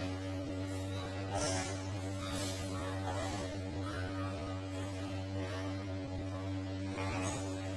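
Steady low electrical hum with a buzzy edge, like mains hum, holding one pitch throughout. Faint hissy swishes come and go above it.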